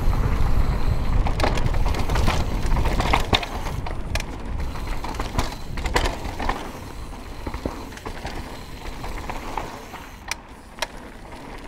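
Mountain bike descending a dirt bike-park trail: tyres rolling over dirt and gravel with a low wind rumble on the microphone, and sharp clicks and rattles from the bike over bumps. It gets gradually quieter through the second half.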